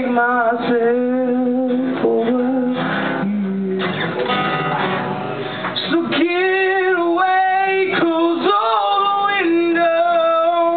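Live song: a singer holding long, wavering notes over strummed acoustic guitar.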